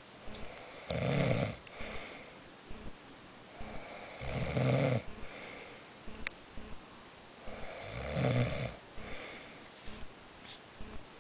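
A sleeping person snoring loudly: three deep, rough snores about every three and a half seconds, with softer breathing between them.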